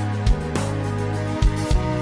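Background music with a steady beat: sustained pitched notes over regular low drum hits and light high percussion.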